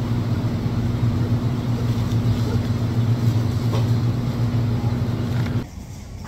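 Steady low hum of refrigeration fans and machinery in a walk-in cooler, cutting off suddenly shortly before the end.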